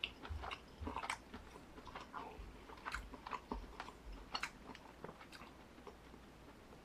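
Close-up eating sounds: chewing and biting, with scattered light clicks of wooden chopsticks against a nonstick frying pan and a plate.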